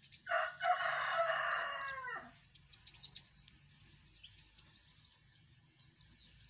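A rooster crows once for about two seconds, its pitch dropping at the end. Faint high chirps of small birds follow.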